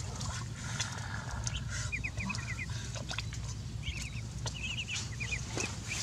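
A brood of ducklings peeping in quick runs of short, rising cheeps, over a steady low rumble.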